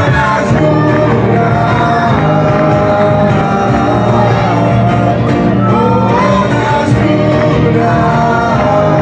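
A live rock band playing through amplifiers: electric guitars and keyboard with a singer's voice carrying the melody.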